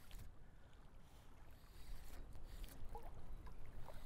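Faint water lapping and sloshing around a wading angler's legs on a shallow flat, with a few soft ticks in the second half.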